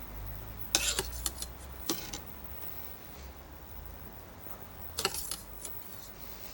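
Kitchen tongs clinking against the pans while spaghetti is lifted from the pasta pot into the saucepan. There is a cluster of sharp clinks about a second in, another near two seconds, and more around five seconds.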